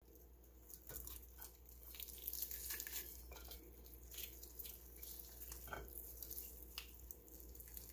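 Whole rotisserie chicken being pulled apart by hand: faint, irregular crackling and wet tearing as the skin splits and the meat comes away from the bone.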